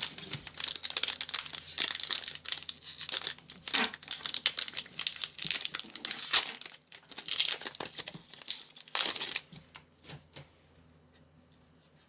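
A foil Pokémon booster pack wrapper crinkling and tearing as it is handled and ripped open, in quick irregular crackles that die down about nine and a half seconds in, leaving a few faint clicks.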